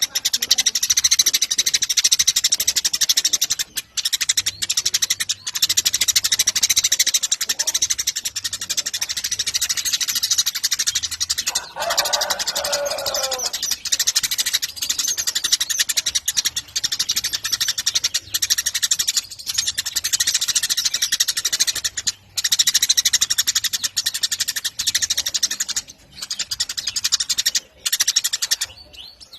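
Eurasian tree sparrows chirping and chattering continuously in rapid, high-pitched notes. About twelve seconds in, a single lower call falls in pitch.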